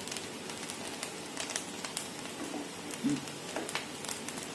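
Egg fried rice crackling softly in a covered pan over the flame as it simmers, a steady faint hiss with scattered small pops.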